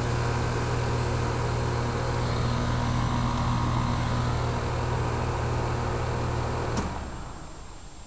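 Trane XE1000 Weathertron heat pump outdoor unit running in defrost with a steady compressor hum. About seven seconds in there is a click and the hum cuts off as the very brief defrost cycle ends.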